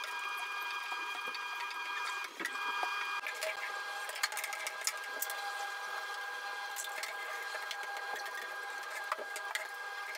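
Steady mechanical whir with several high, even tones, under scattered light clicks and knocks from cleaning in a small tiled room.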